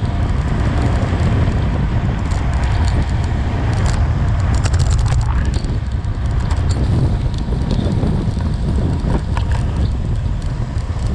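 Heavy wind rumble on the microphone of a bicycle coasting at about 40 mph, with tyre noise on rough asphalt and scattered small clicks.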